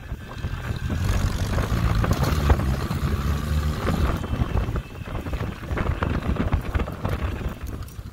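Jeep engine running as it drives slowly over a bumpy sand trail, with knocks and rattles from the ride and wind on the microphone. The engine sound eases briefly about five seconds in.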